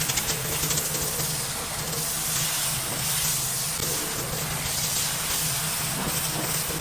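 Pressure washer blasting dirty concrete: a steady hiss of the high-pressure water jet over the even hum of the machine running underneath.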